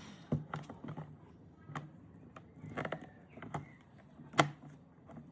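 Hand pop-rivet gun being squeezed repeatedly to set a rivet: several sharp clicks about a second apart as the jaws grip and pull the mandrel, the loudest one near the end.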